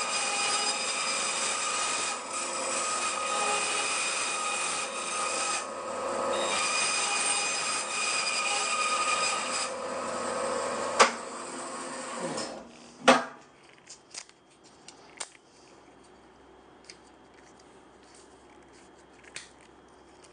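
Bandsaw running and cutting timber, a steady motor and blade whine with cutting noise. About eleven seconds in it stops with a click and winds down, and a sharp knock follows. Then only scattered small taps and clicks of wood being handled.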